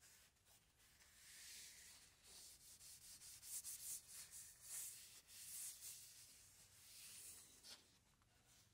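Faint swishing of a paper towel rubbed back and forth along a hatchet's wooden handle, in uneven strokes that are loudest around the middle.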